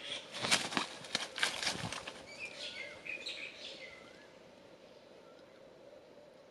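An eagle's wingbeats and rustling as it lands on a stick nest, a quick cluster of strokes in the first two seconds, followed by a few thin, wavering high calls that fade out about four seconds in.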